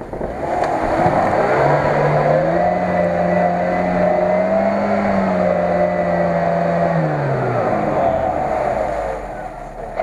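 Lada Niva (VAZ-2121) engine revving under load as the 4x4 pushes through deep mud: the revs climb about a second in, hold high, and drop back about seven seconds in.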